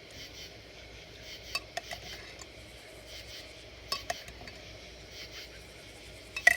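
Cutlery clinking against a dish a few sharp times, in pairs about a second and a half and four seconds in, with the loudest, ringing clink near the end.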